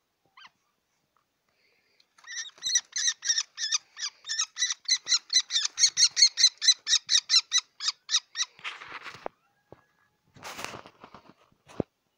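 A falcon calling in a fast, harsh repeated series, about four to five calls a second for some six seconds. Two short rustling bursts and a sharp click follow near the end.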